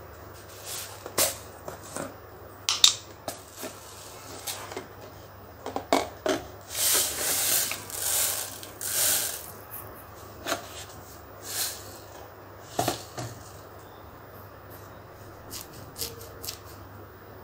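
Kitchen noises: scattered sharp clicks and knocks, with a few short hissing bursts around the middle.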